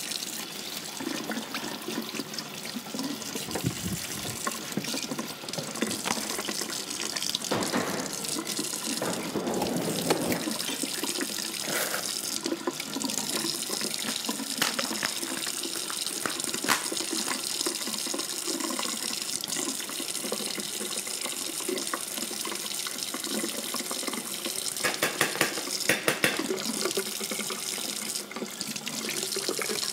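Kitchen sink tap running steadily, with a few short clinks and knocks of dishes being handled.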